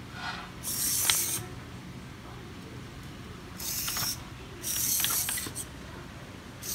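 Hobby servo motors of a small Arduino-driven walking robot whirring in short bursts, each under a second long, with a few clicks from the gears as the legs swing.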